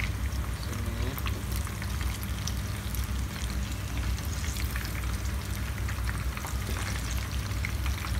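Battered shrimp frying in hot oil in a frying pan: a steady sizzle full of small crackles and pops, stirred with a wooden spatula. A low steady hum runs underneath.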